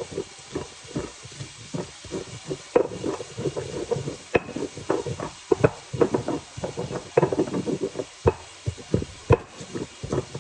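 Stone pestle pounding and grinding garlic and seasonings in a volcanic-stone molcajete: irregular sharp knocks, a few a second, with gritty scraping between them.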